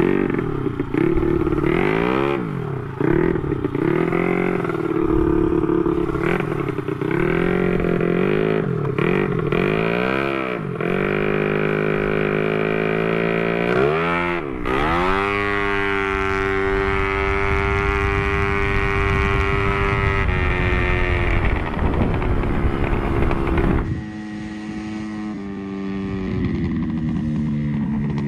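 Honda Beat scooter's single-cylinder engine being revved in repeated rising and falling blips, about one a second, then opened up at about fourteen seconds in to a high, steady note held for several seconds under full throttle. Near the end the sound cuts to a lower, quieter engine note.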